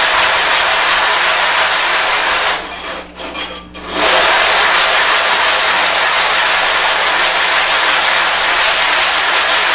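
Sharpening stone being scrubbed back and forth over dry loose abrasive grit on a glass plate, a continuous gritty scraping that pauses briefly about three seconds in. This is the stone being dressed flat.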